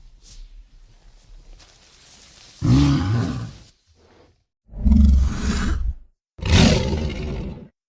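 Wendigo monster sound effect: three separate roars, each about a second long, starting after a quiet opening couple of seconds.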